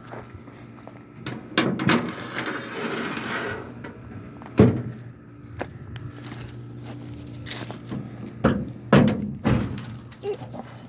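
Rummaging through stored parts in search of spare lug nuts: a string of irregular knocks and clunks of things being moved and set down, with a rustling shuffle about two seconds in and the loudest knock near the middle.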